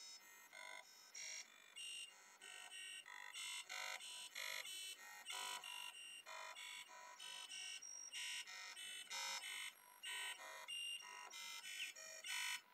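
Harsh bytebeat-style electronic tones generated by the malware, playing through laptop speakers: short blocks of buzzy pitches that jump to a new note several times a second, thin with no bass. They cut off abruptly near the end.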